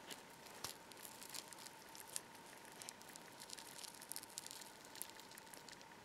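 Gloved fingers handling a small metal latch part covered in a wet, softened coating: faint, irregular sticky crackles and clicks.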